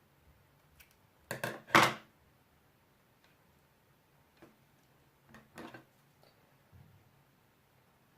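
A few sharp clicks and taps: a loud double click about a second and a half in, then fainter scattered taps, as small craft decorations and tools are handled on a table.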